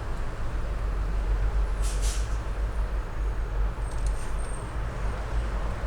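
Printer parts being handled and fitted: a brief scrape about two seconds in and a few faint light clicks later, over a steady low hum.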